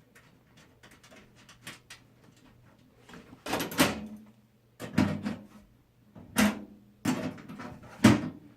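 Knocks and clatter of hands handling metal parts in a computer case while fitting motherboard standoffs: faint small clicks at first, then about five loud sharp knocks roughly a second apart.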